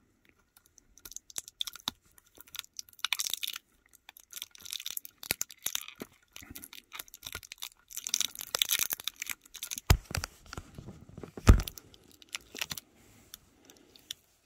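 Metal tracks of a 1:87 scale die-cast Hitachi EX8000 model excavator clicking and rustling against a tabletop as the model is pushed along by hand. Two sharp knocks come about ten and eleven and a half seconds in.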